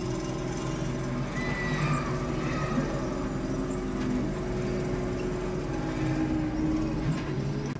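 A steady low mechanical hum, like a motor running, with a few faint short high chirps now and then.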